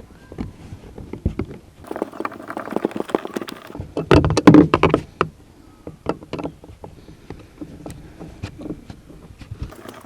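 Plastic car door trim being handled and fitted back into place: a run of clicks, knocks and rattles, busiest and loudest about four to five seconds in.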